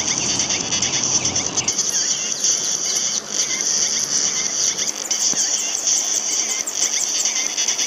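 A dense, continuous chorus of peeping from a large flock of young broiler chicks, many short high falling peeps overlapping. A low rumble beneath it cuts off about two seconds in.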